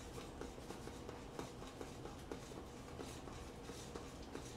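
Faint, quick, irregular scratchy scraping from cooking utensils at the stove.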